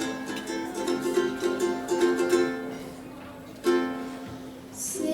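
Acoustic string instrument strummed and picked, playing a song's instrumental opening chords. A loud strummed chord about two-thirds of the way through rings out and fades.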